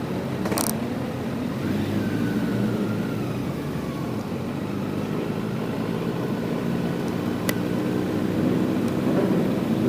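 Kawasaki Z900's inline-four engine running at low, fairly steady revs from the onboard microphone, with a sharp click about half a second in.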